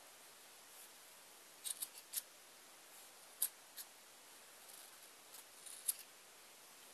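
Scissors snipping through the loops of a yarn pom-pom: short sharp snips, a quick run of four about two seconds in, then single snips spread out after.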